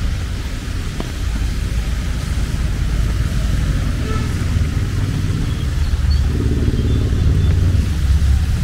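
Street traffic with vehicle engines running. A low rumble fills the whole stretch, and an engine's note grows louder about six seconds in as a vehicle passes close.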